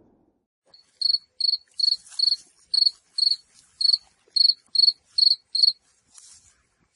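Cricket chirping: a dozen or so short, high chirps at an even pace of about two a second, the stock crickets sound effect.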